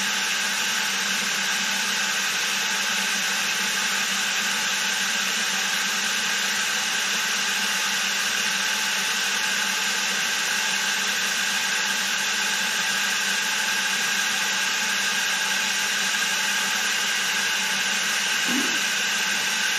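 Milling machine motor running steadily, a constant hum with a fixed whine and no change in speed.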